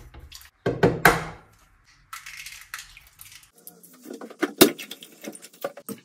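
Metal fork clinking and scraping against a ceramic bowl while mixing seasoned raw fish pieces with an egg. There are a few sharp knocks about a second in.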